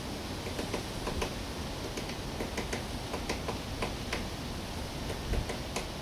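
Downy woodpecker pecking into a wooden house board, irregular sharp taps a few a second, some in quick pairs, over a steady hiss. One duller thump a little past five seconds in.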